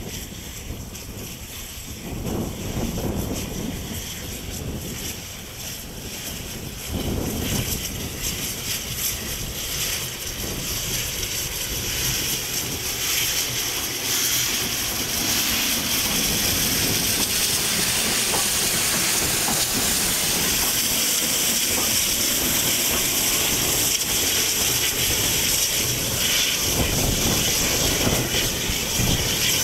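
Mikado (2-8-2) steam locomotive working very slowly: a few heavy, uneven exhaust puffs, then a steady loud hiss of escaping steam as the engine and its wagons pass close by.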